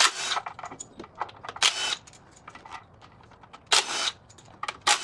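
Short bursts of metallic clicking and rattling, about four, with small ticks between, from a socket wrench and loose bolts as the timing cover bolts come off the engine.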